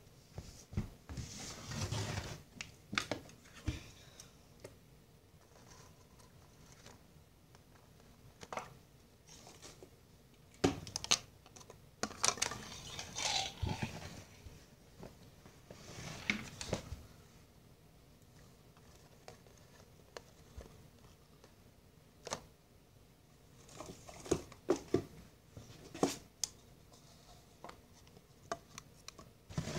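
Small plastic toy bins being handled on a tabletop: scattered clicks, taps and rustling in short bursts, with a quieter stretch in the middle.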